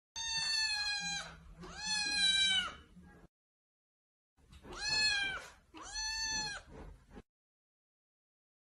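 Domestic cat meowing: four long, high meows in two pairs, with a short silence between the pairs. Each meow holds its pitch, then drops at the end.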